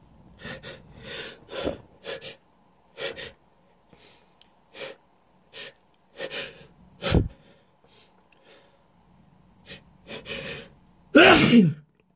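A person's short, irregular gasping breaths building toward a sneeze, with a louder voiced catch about seven seconds in, then a full, loud sneeze near the end.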